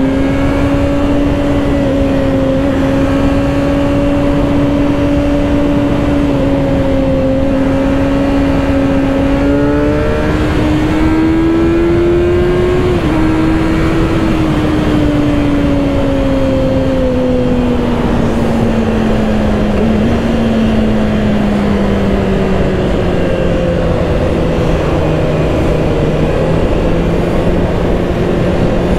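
Kawasaki ZX-6R's 636 cc inline-four engine running at steady cruising revs over constant wind noise. About ten seconds in the engine note climbs briefly, then falls slowly for several seconds as the bike eases off, and picks up a little again near the end.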